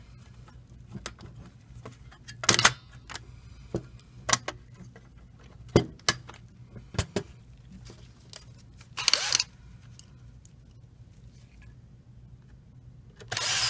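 Sheet-metal cover and plastic parts of a laser printer fuser assembly being handled and fitted back into place: a scattering of separate sharp clicks and knocks, with a longer scraping rasp about nine seconds in. A low steady hum runs underneath.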